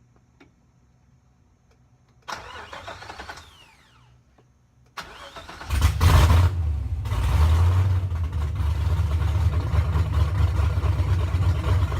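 LS V8 in a 240sx, running on open headers with no exhaust, being started. The starter cranks briefly about two seconds in and winds down. A second crank near the middle catches, flares up loudly and settles into a loud, rough idle that the builders call super loud.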